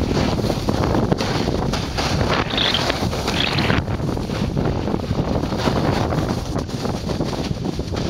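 Steady wind rushing and buffeting over a camera microphone carried at speed down a ski slope, with the hiss of edges sliding on packed snow.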